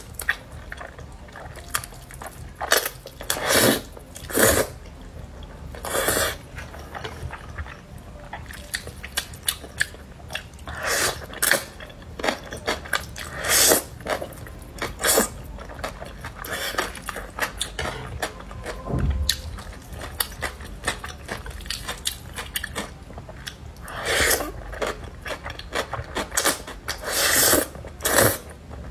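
Close-up eating of black bean sauce noodles: loud, short slurps as strands of noodles are sucked in, repeating at irregular intervals, with quieter wet chewing between.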